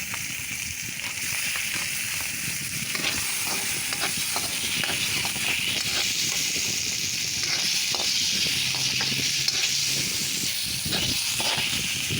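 Soaked shiitake mushrooms sizzling in hot oil with fried onion and garlic, stirred with a spatula that scrapes and clicks against the pan. The sizzle grows louder about halfway through.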